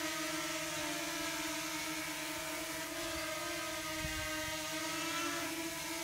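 DJI Mini 2 quadcopter's propellers whining steadily as the drone flies slowly.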